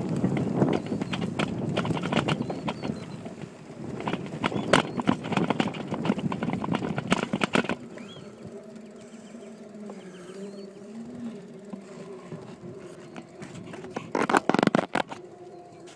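A mountain bike being ridden with a phone on a handlebar mount: the bike and mount rattle and knock over rough ground. About eight seconds in, the ride turns quieter and smoother on the paved drive, with a steady hum, and a short burst of clatter comes near the end.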